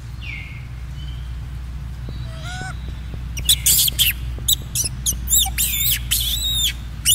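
Newborn macaque squealing: a few faint gliding cries, then from about three seconds in a rapid series of loud, high, arching squeals. A low steady rumble runs underneath.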